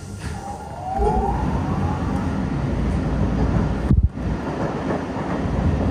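MBTA Blue Line subway car pulling away from a station: its electric traction motors give a rising whine as it gathers speed, over a building rumble of wheels on rails. A brief loud knock comes about four seconds in.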